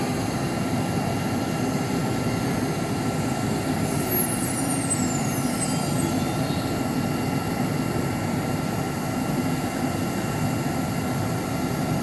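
SIGN A8 4-axis CNC router running with a steady mechanical noise and a few steady tones. About four seconds in, a high whine slides down in pitch over a couple of seconds.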